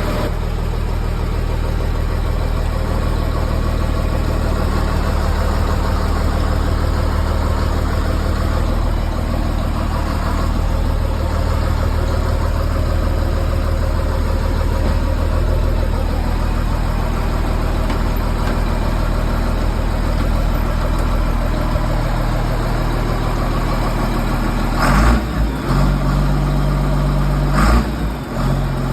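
John Deere 4850 tractor's six-cylinder diesel engine running steadily after a cold start. Near the end its note changes and a few sharp knocks are heard.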